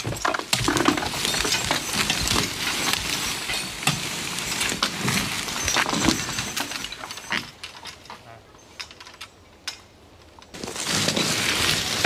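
Dry fallen leaves and brush crackling, with many twigs snapping in quick succession. It thins out about two-thirds of the way through, then starts up again near the end.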